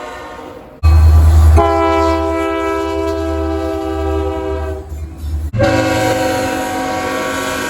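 Train horns sounding long, steady chords of several tones, in clips cut one after another: a sudden cut about a second in brings a loud low rumble of a train, a horn chord sounds over it for about four seconds, then another cut brings a different horn chord.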